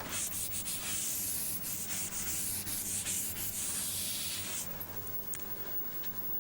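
Scratching of handwriting on a writing surface: a run of quick strokes lasting about four and a half seconds, then only a few faint scratches.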